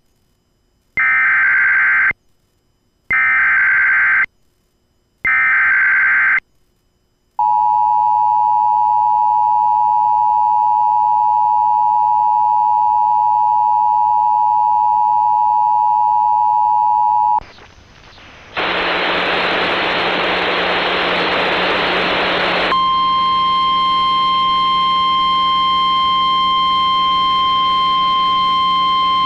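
Emergency Alert System activation from a Sage ENDEC: three one-second bursts of warbling SAME header data, then the two-tone attention signal held steady for about ten seconds. It cuts off, about four seconds of radio static follow, then a single steady tone begins: the NOAA Weather Radio warning alarm tone relayed from the weather radio feed.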